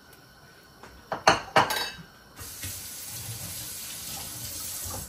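Kitchen cookware and utensils clinking sharply a couple of times about a second in, then a steady hiss that starts and stops abruptly, lasting about two and a half seconds.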